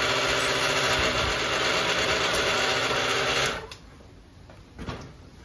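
Electric air pump running as a football is inflated through a needle in its valve, a steady motor hum with airy hiss that cuts off suddenly about three and a half seconds in. A few faint clicks follow.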